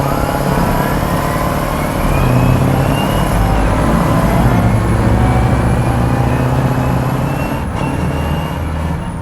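Combat Vehicle 90 tracked armoured vehicle running: a deep diesel engine note that steps up in load about two seconds in, with high drivetrain whines slowly rising in pitch over it.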